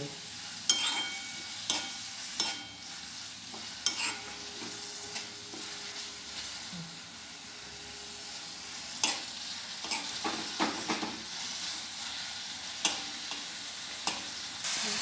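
Grated beetroot sizzling as it fries in ghee in a steel kadhai, with a steel spoon scraping and clinking against the pan as it is stirred. The clinks come irregularly, every second or few, over a steady sizzle that gets louder near the end.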